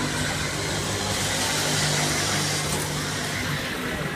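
Steady engine-like hum of carnival ride machinery, heard from a rising Ferris wheel seat, with a rushing hiss that swells in the middle.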